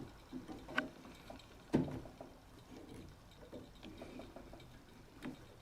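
A few faint clicks and knocks of metal parts being handled as a wheel is taken off a continuous band sealing machine, the loudest knock a little under two seconds in.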